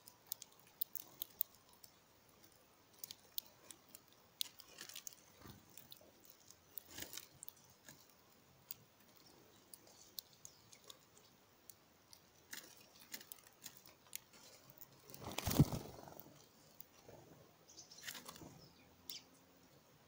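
Sparrows pecking at mixed seed on a wooden platform feeder: scattered faint, sharp taps and crunches of beaks on seed and tray, with one louder thump about fifteen seconds in.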